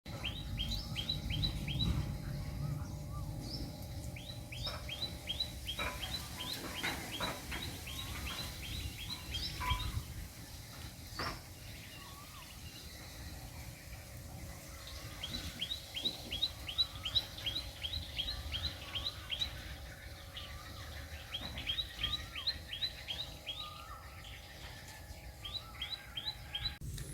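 A bird calling in rapid runs of short, high, down-slurred chirps, about five a second, in several bouts with pauses between them, over a faint low outdoor rumble and a few light knocks.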